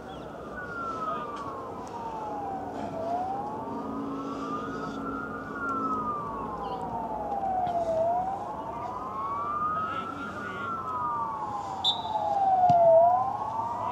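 Emergency vehicle siren wailing in a slow, steady rise and fall of pitch, one full cycle about every five seconds.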